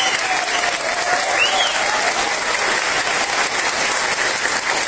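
Audience applauding: a dense, steady clapping of many hands, with a few short calls rising over it.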